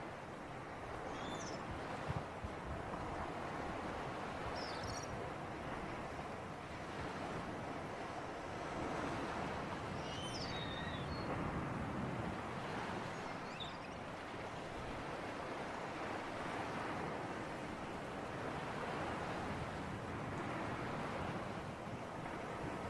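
Sea surf washing steadily on the shore, swelling and easing every few seconds, with a few short high bird chirps scattered through it.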